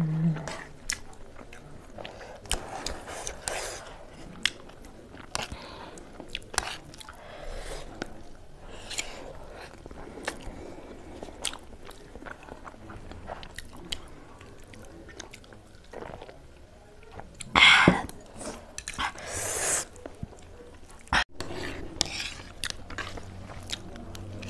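People chewing spicy instant noodles, heard close up as many small clicks and smacks of the mouth. There is a louder, longer rush of sound about 18 seconds in and another just after.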